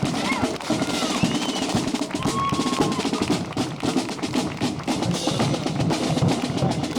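Snare and bass drums playing, with rolls and steady beats, among crowd voices.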